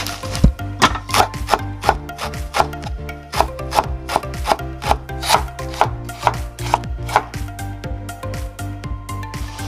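Chef's knife slicing rolled perilla leaves on a wooden cutting board: crisp, steady knife strokes about two to three a second, stopping near the end.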